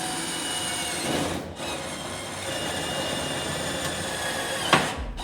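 A power drill driving a self-tapping screw into a clothes dryer's sheet-metal panel, with a high squealing whine. It runs about a second and a half, stops briefly, runs again for about three seconds, and ends with a sharp knock.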